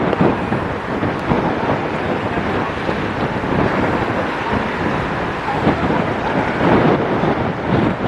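Strong gusting hurricane wind buffeting the microphone, a loud, rough rushing that swells and eases irregularly.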